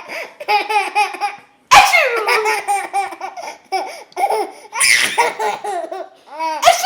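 Baby belly-laughing in quick rhythmic pulses, broken by sudden loud outbursts about two seconds in, near five seconds and near the end.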